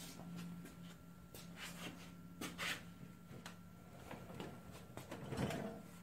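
Someone moving about at a workbench and handling parts: scattered light clicks, rustles and scrapes, with a louder knock and rustle about five and a half seconds in, over a steady low hum.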